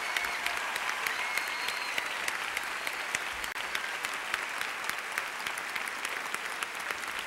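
Studio audience applauding: dense, steady clapping.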